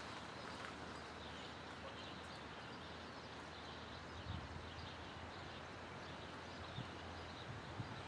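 Quiet outdoor ambience: a steady low hiss with faint bird chirps. A few soft low thumps come in from about four seconds in.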